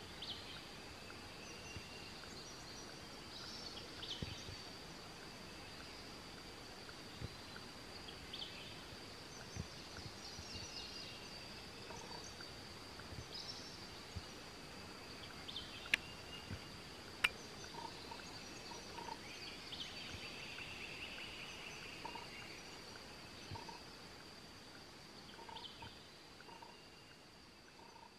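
Quiet outdoor ambience with scattered faint bird chirps over a steady, thin high-pitched tone. Two sharp clicks about a second apart a little past halfway are the loudest sounds.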